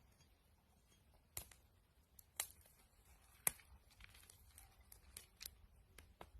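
Faint scattered clicks and crackles: three sharp ones about a second apart, then lighter ticks, over a quiet background.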